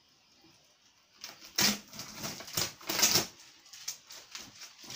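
Packing tape being torn off a cardboard box, with a few loud ripping strokes about a second and a half in and around three seconds, then smaller rustles of tape and cardboard.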